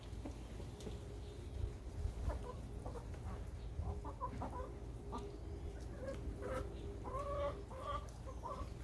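Chickens clucking softly: short, scattered clucks that come more often toward the end, over a low, steady rumble.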